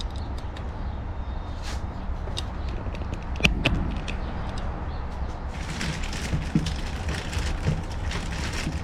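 A tour pack luggage rack being unpacked from its packaging: scattered clicks and a sharp knock about three and a half seconds in, then continuous crinkly rustling of the wrapping from about halfway through, over a steady low rumble.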